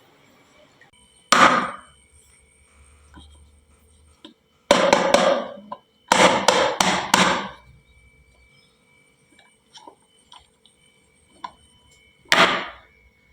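Marbles clacking down a HABA wooden slope marble run. There is a single sharp clack, then two bursts of rapid clattering a few seconds later, and one more clack near the end.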